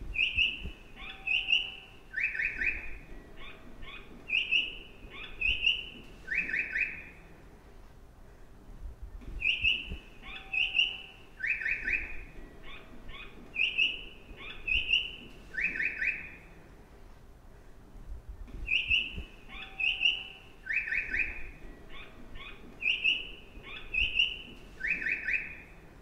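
Recorded bird chirps of a Japanese train station's stair-guide sound for vision-impaired travellers, the audible cue that marks where the stairs are. The same short sequence of bright chirps repeats as a loop about every nine seconds, three times here.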